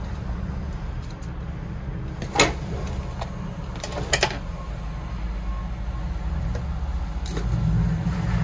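Light clicks and taps of small bonsai tools and the pot being handled on a tabletop: a sharp tap about two and a half seconds in, a quick double tap about a second and a half later, and a softer one near the end, over a steady low rumble.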